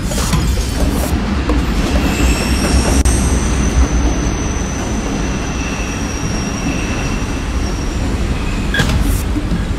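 Berlin U-Bahn train pulling into an underground station: a loud low rumble with a thin, high wheel squeal from about two seconds in until shortly before the end. A few sharp clicks follow near the end.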